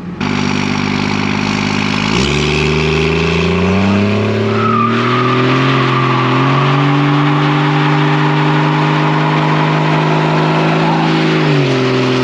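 1999 Dodge Ram's 5.9-litre Cummins turbo-diesel inline-six revved hard and held at high revs during a burnout, with the rear tyres spinning and squealing. The revs climb about two seconds in, hold, and drop back near the end.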